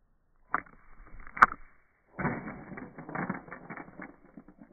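Black-capped chickadee landing on a plastic dish of black sunflower seeds and rummaging through them, its beak and feet rattling and clicking the seeds against the plastic. A single sharp click comes about a second and a half in, then a dense run of rattling clicks lasts for about two seconds.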